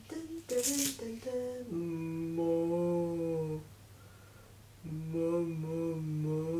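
A person humming: a few short notes, then a long held note, a pause, and a second long note that falls slightly in pitch. A short hiss comes about half a second in.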